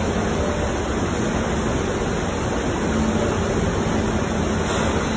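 Steady rushing noise of spraying water, even throughout with no separate strikes or changes.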